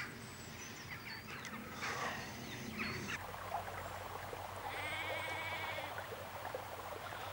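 A sheep bleating once, a wavering call about five seconds in, over faint open-air background with a few thin high chirps.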